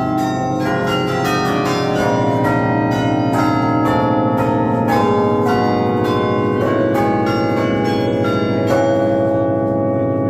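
A 47-bell carillon playing a melody, with several bell strikes a second whose ringing tones overlap and sustain.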